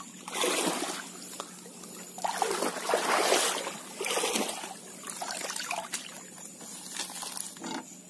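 Water trickling and splashing in several uneven gushes, loudest about three seconds in.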